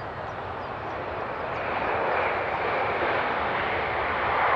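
Jet aircraft engine noise that swells over the first couple of seconds and then holds steady.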